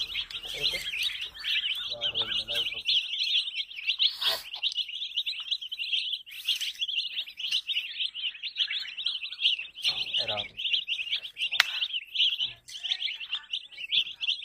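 A group of baby chicks peeping continuously, many rapid high-pitched chirps overlapping into a steady chorus, with a few sharp clicks.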